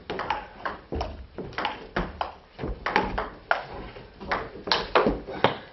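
Table tennis rally: the celluloid ball clicking sharply off the bats and the table in quick alternation, about three to four clicks a second, with a brief lull about four seconds in.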